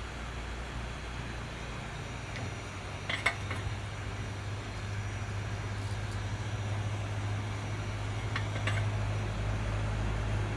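Steady low electrical hum, with a few light clicks about three seconds in and again near the end.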